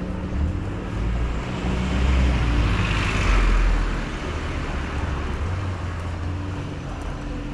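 A motor vehicle passing close by on a city street: a rumble and tyre noise that swell to a peak about three seconds in and then fade back into the traffic.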